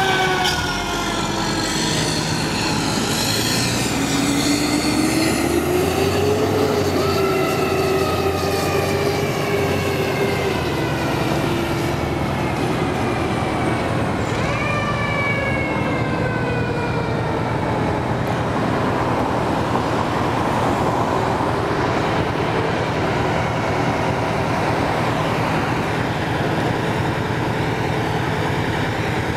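Federal Q2B mechanical siren on a 2005 Seagrave fire engine, winding up and coasting down in repeated wails as the truck pulls away. The wails fade out a little past halfway, leaving a heavy truck engine idling steadily underneath.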